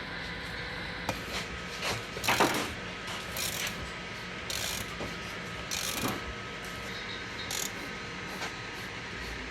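Metal parts and hand tools being handled while assembling a paramotor clutch: scattered clicks and short scraping bursts, the loudest about two and a half seconds in, over a steady faint hum.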